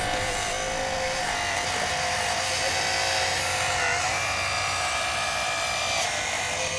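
Whine of the RC4WD 4200XL Earth Digger model excavator's small electric motors, a steady high hum that shifts in pitch about four seconds in and again near six seconds.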